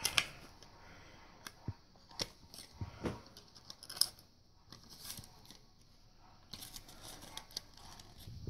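Hard plastic watch display case being handled and opened: scattered light clicks, taps and rustling of the plastic packaging, with a few sharper clicks at the start and about three and four seconds in.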